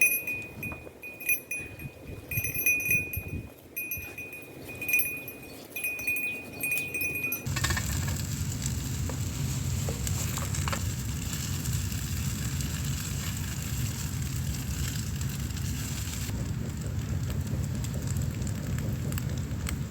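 A series of light, ringing clinks of tableware, then a sudden change about seven seconds in to a steady hiss that lasts to the end.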